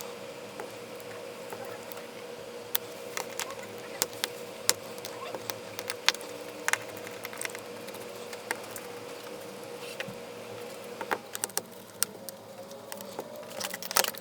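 Scattered small clicks and ticks of a precision screwdriver driving tiny screws into a Galaxy S7 Edge's internal covers, over a steady faint hum.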